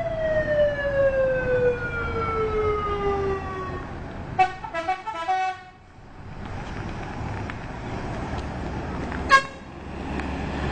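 Telolet bus horn: a siren-like tone sliding slowly down in pitch for about three and a half seconds. About four seconds in comes a quick burst of rapid, stuttering multi-note honks, and near the end a single short toot, over steady road noise.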